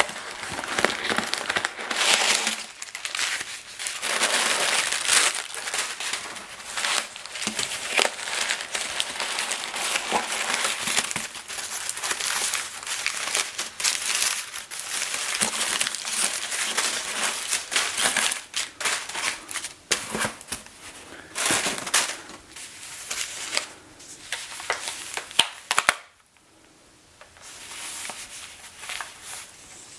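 Crumpled brown kraft packing paper rustling and crinkling as hands dig through a cardboard box and lift out a wrapped item, with one sharp click near the end. The sound then drops off suddenly and gives way to a softer rustle of tissue paper being unwrapped.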